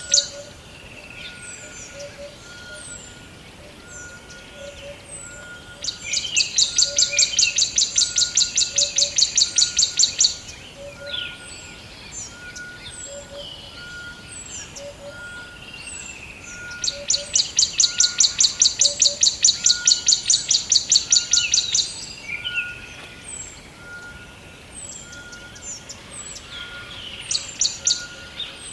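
Forest songbirds chirping, with many short high chirps throughout. Twice a loud rapid trill runs for about four seconds. A faint, evenly repeating lower call goes on underneath.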